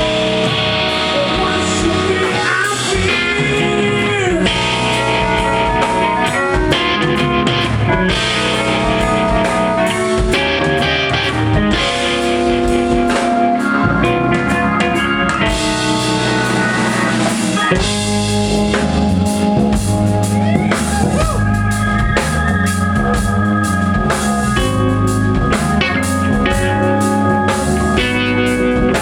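Rock band playing live in an instrumental passage: an electric guitar lead with bent notes over drum kit and bass.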